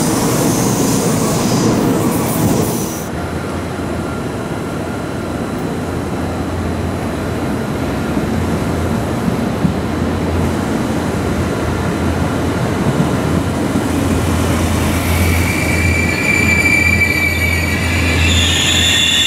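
A moving S-Bahn electric train, with high-pitched wheel squeal, for the first three seconds. Then a LINT regional railcar approaches and rolls along the platform with a steady low hum. From about 15 s, high wheel or brake squeal grows as it slows.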